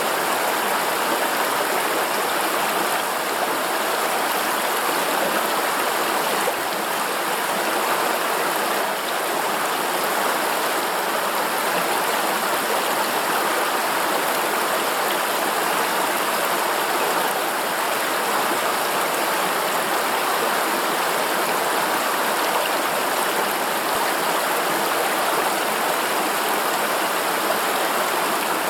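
River water running: a steady, even rush of flowing water.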